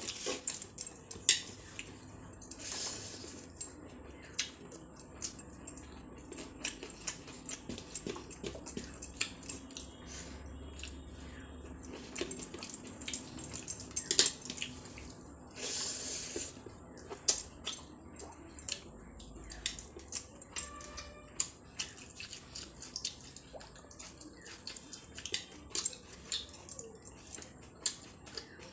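Close-up eating sounds as rice and curry are eaten: irregular wet clicks, squelches and chewing, with a couple of louder smacks.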